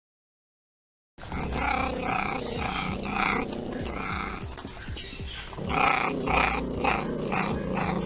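A wild cat giving a run of short, rasping calls, about two a second, in two bouts with a brief pause between them.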